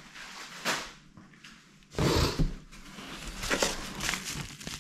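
Packages being handled in a cardboard box: scattered rustles and knocks, the loudest a dull thump about two seconds in.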